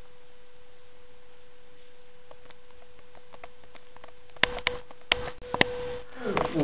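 A steady single-pitched hum, with about five sharp clicks and knocks from about four and a half seconds in.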